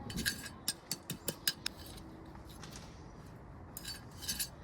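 Pavers clinking and scraping against each other as they are set and nudged into place: a quick run of sharp clicks in the first two seconds and a few more near the end.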